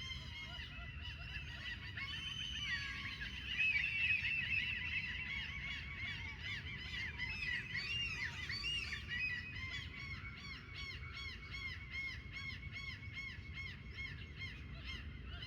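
A flock of birds calling at once: many overlapping chirping calls, busiest about four seconds in, then settling into a quick, regular run of repeated calls.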